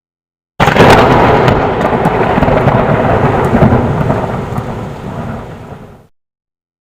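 Thunder sound effect: a sudden loud crack that rolls into a long rumble with a few sharp crackles, fading over about five seconds before it is cut off abruptly.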